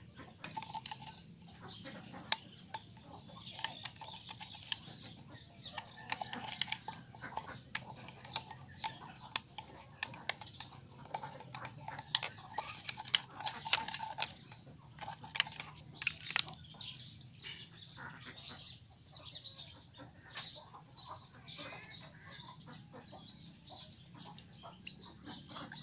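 Scattered sharp clicks and taps of hands handling and refitting the sediment bowl and fuel filter on a stopped Kubota diesel engine, with chickens clucking in the background.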